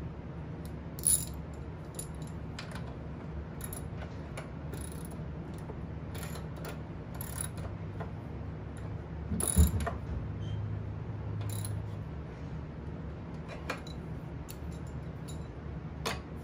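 Ratchet wrench clicking in short runs as a bolt on the mower deck's belt guard over the blade-drive pulley is tightened, with scattered metal clinks, a sharp clank about a second in and a louder knock near the middle. A steady low hum runs underneath.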